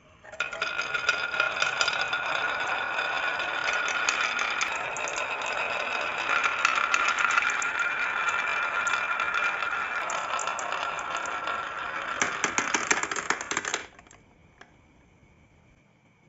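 Marbles rolling and clattering along a marble run: a dense, continuous rattle with a steady ringing tone through it, which stops abruptly about 14 seconds in.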